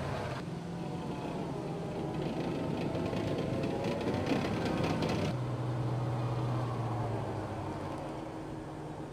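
Assault amphibious vehicle's diesel engine running as its tracks churn through the surf, with water splashing. About five seconds in the sound changes abruptly to a steadier engine drone as the vehicle moves on the sand.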